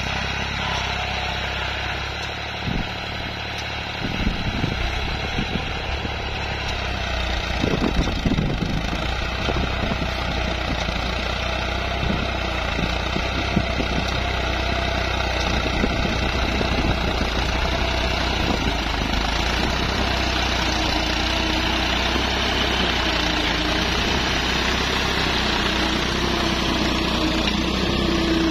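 Farm tractor's diesel engine running steadily as it pulls a spring-tine cultivator through the field, with irregular knocks and rattles between about four and nine seconds in.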